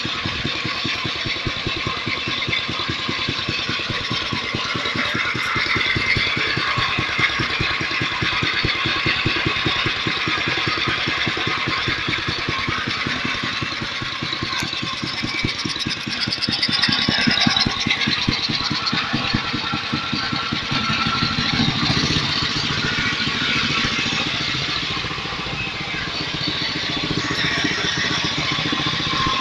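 The engine of a homemade scrap-built tractor running steadily, a rapid, even beat of firing pulses, swelling a little about halfway.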